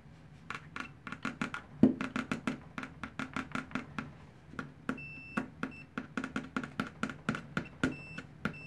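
Metal test-probe tips tapping together in quick clicks, several a second, while a pen multimeter's continuity beeper gives short faint high beeps from about five seconds in. The beeper is slow to respond and needs a lot of pressure on the tips: poor continuity detection. This meter is the Maximum 052-1897-6, a rebadged Mastech MS8212A.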